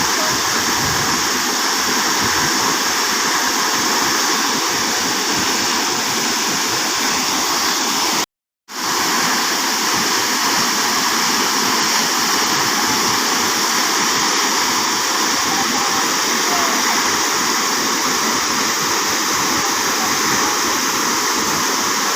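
Waterfall, a steady dense rush of falling water. It cuts out to silence for a split second about a third of the way through.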